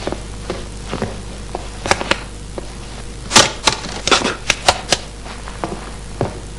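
Footsteps and scuffs on a wooden floor: irregular sharp clicks, with a run of louder cracks about three and a half to five seconds in, over a steady low hum.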